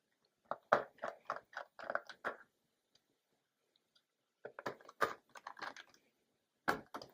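Small, irregular clicks and taps of a precision Phillips screwdriver and small metal parts as the hard-drive retaining bar is screwed back into a MacBook Pro, in three short clusters with pauses between.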